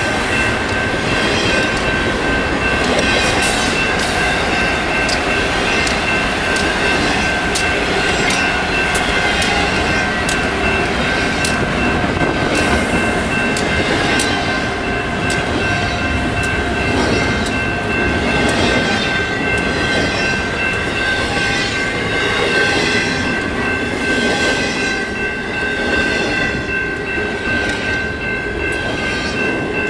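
A grain train of freight cars rolls past slowly, its wheels clicking regularly over the rail joints. A steady high squeal from the cars runs underneath. The train is slowing.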